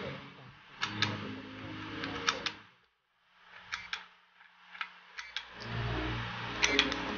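Hard drive clicking repeatedly over the hum of its spinning motor: the click of a failing drive. It briefly goes almost silent about three seconds in, then the hum returns.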